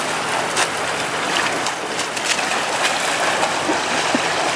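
Floodwater rushing in a steady, even roar of flowing water, with small splashes ticking through it.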